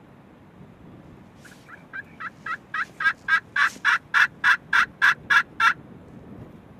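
A run of about sixteen turkey yelps, roughly three or four a second, starting soft and quickly growing loud, then stopping abruptly.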